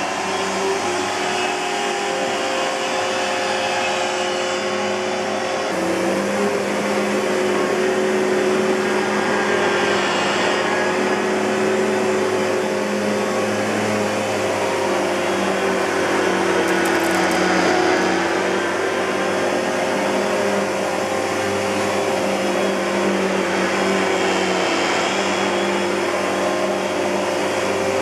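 Kenmore Progressive canister vacuum's SIP Cinderson blower motor running steadily with a whining hum, the tone shifting slightly about six seconds in.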